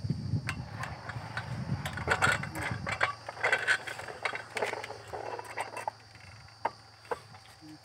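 Irregular metal clicks, knocks and scraping as a borewell pipe column is turned by hand with a long bar through it. A steady low hum comes in about three seconds in.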